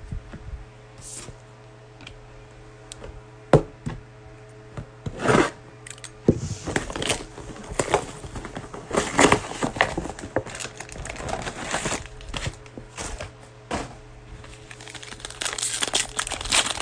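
Trading card packaging being handled: scattered knocks and rustling as a cardboard mega box is picked up and opened, then a foil card pack crinkling and tearing as it is ripped open near the end.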